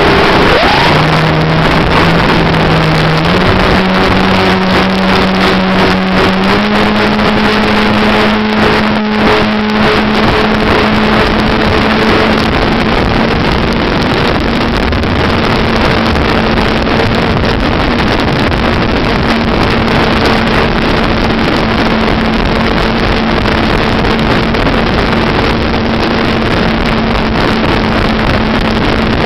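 Rushing airflow over an electric radio-controlled model aeroplane in flight, heard from a camera mounted on the plane, with the steady hum of its electric motor and propeller. The hum steps up in pitch three times in the first few seconds, then holds steady.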